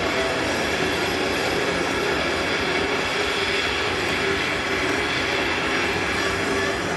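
A steady, dense wall of noise with faint sustained tones running through it, played as the sound score of a contemporary dance piece.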